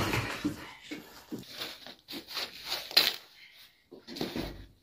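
Irregular rustling and light knocks of freshly baked naan flatbreads being handled and stacked by hand, with one sharper click about three seconds in.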